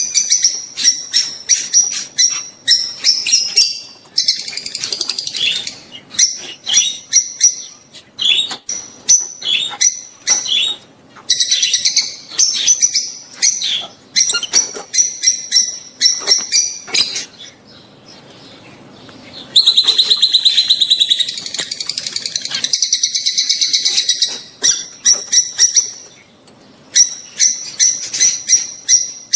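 Rosy-faced and Fischer's lovebirds chattering in rapid, sharp, high chirps and screeches. There are two longer buzzing trills, one about four seconds in and a louder one about twenty seconds in after a brief lull. The uploader offers these calls as lovebird mating calls to stimulate breeding.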